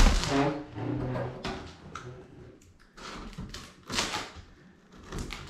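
A large cardboard box thumps down on a wooden table. Then comes a run of scratchy cuts and tears as a blade slices through the packing tape along the top of the box.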